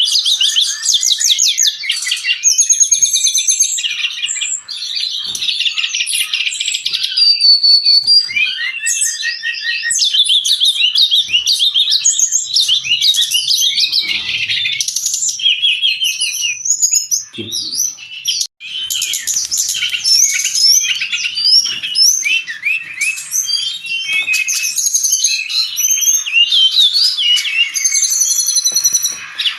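Brown-chested jungle flycatcher singing almost without a break: a fast, varied run of high chattering notes, trills and short whistles.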